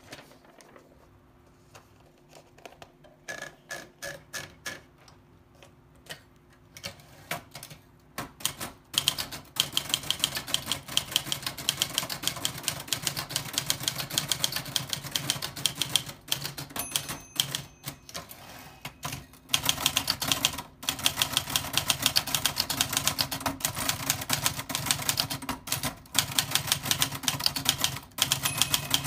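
Old typewriter being typed on. A few slow, scattered keystrokes come first, then fast continuous typing from about nine seconds in, broken by short pauses.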